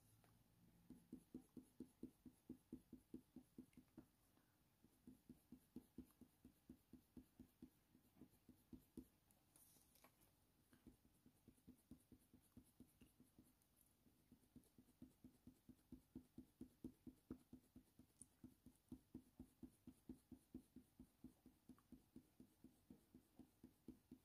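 Colour pencil stroking on hot-press watercolour paper: a faint run of short, quick strokes at about four or five a second, broken by a few brief pauses.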